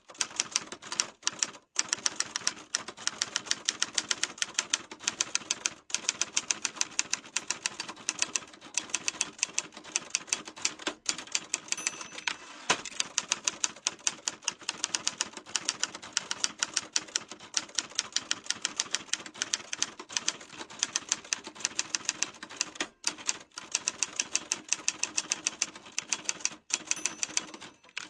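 Typewriter keys striking in steady, fast typing, about six strokes a second, with a few brief pauses.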